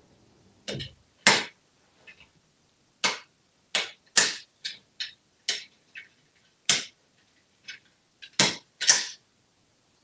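A toy wrench in an African grey parrot's beak knocking and tapping on a marble vanity counter: about a dozen sharp clicks and knocks at irregular intervals, some with a dull thud.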